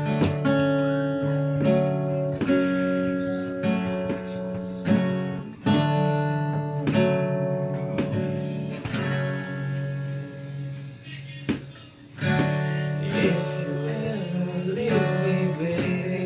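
Acoustic guitar playing a song's intro, chords struck one after another and left to ring.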